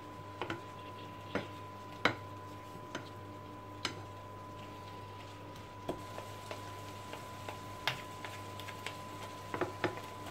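Wooden spoon and wooden spatula knocking and scraping against a frying pan while seafood is tossed in it: light, irregular clicks every second or two, a few in quick succession near the end, over a steady low hum.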